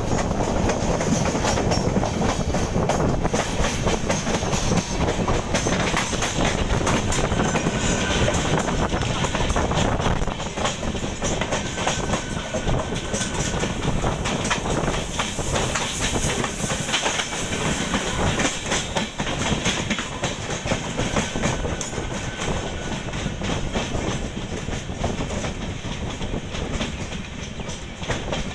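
Kovai Express coaches running at speed, the wheels rumbling and clacking steadily over the rail joints. Around the middle, a suburban electric train passes close alongside.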